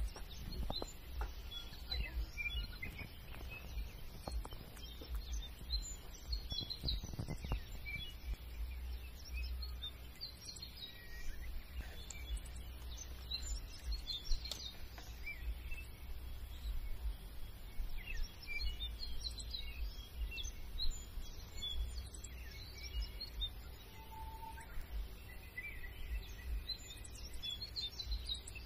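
Outdoor ambience: small birds chirping on and off over a low steady rumble.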